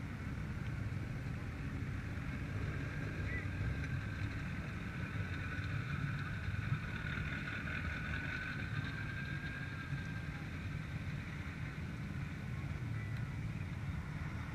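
Distant pickup truck engines running steadily as a low rumble, with a faint whine that rises and falls back in pitch around the middle.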